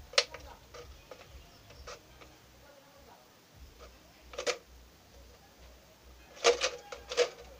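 Scissors snipping through the thin plastic wall of a soda bottle: one crisp snip near the start, another a little past halfway, and a quick run of three or four snips near the end.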